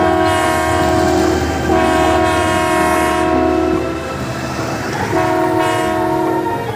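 Train-style multi-tone horn on an odong-odong village tour train, sounding a chord in long blasts of about two seconds each with short gaps between, over a low rumble.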